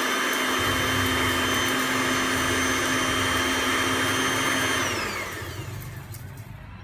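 Electric grinder motor running at full speed, grinding dried moringa leaves into a fine powder, then switched off about five seconds in and winding down with a falling whine.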